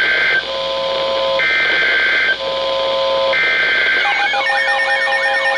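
Electronic alert tones alternating between a high chord and a low chord about once a second. About four seconds in, more alarm sounds join: a fast rising-and-falling siren-like sweep over steady beeping tones.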